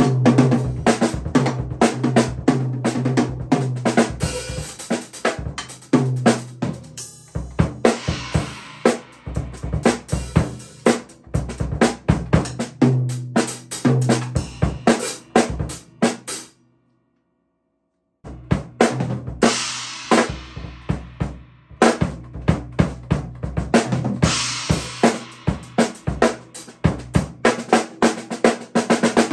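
Drum kit played with Promark drumsticks: fast snare and bass drum strokes with hi-hat and cymbal crashes. The playing breaks off into complete silence for about a second and a half partway through, then starts again.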